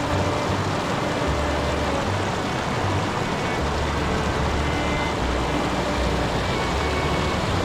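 Shallow stream water running over rocks, a steady even rush, with uneven low rumbles underneath.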